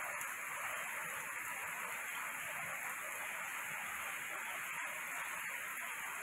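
Heavy rain pouring down steadily, a dense even hiss of water falling on leaves and the ground.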